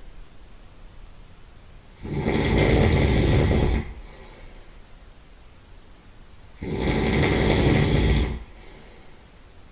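Loud nasal snoring from a sleeping person: two long, buzzy snores of about two seconds each, roughly four and a half seconds apart, with quieter breathing between.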